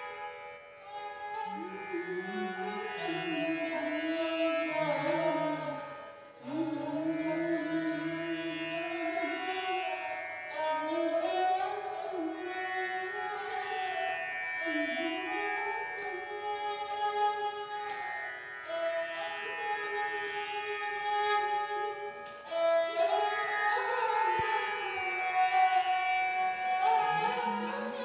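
Background music: an Indian classical-style instrumental melody that slides smoothly between notes over a steady drone.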